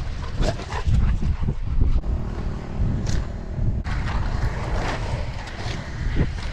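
Strong wind buffeting the microphone, a heavy rumble that surges and dips in gusts.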